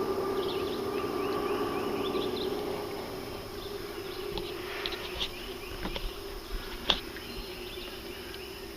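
An insect buzzing near the microphone, a steady hum that fades out after about three seconds. A few light knocks follow, the loudest about seven seconds in.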